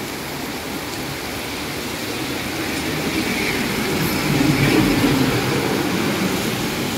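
Heavy rain falling steadily while a large diesel passenger bus drives past on the wet road. Its engine and tyre noise swell to their loudest about four to five seconds in.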